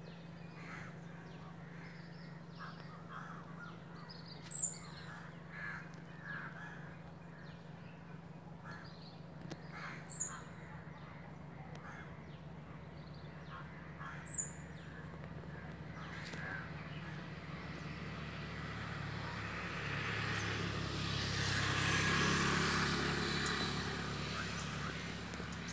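Crows cawing on and off among other bird calls, with three sharp high notes spaced a few seconds apart. A rushing noise swells up in the last several seconds and eases off near the end.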